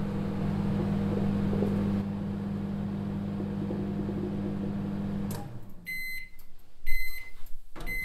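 A 700-watt microwave oven running at full power with a steady hum. It stops about five seconds in, then its beeper sounds three short, high beeps about a second apart.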